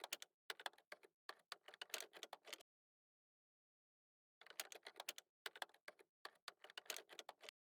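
Rapid clicking like typing on a keyboard, in two runs of a few seconds each separated by a pause of about two seconds.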